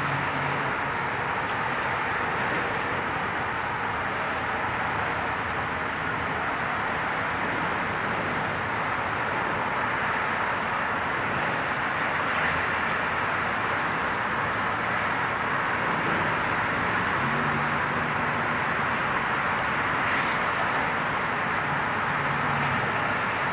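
Steady roar of road traffic on the bridge, with a faint low hum coming in briefly about two-thirds of the way through.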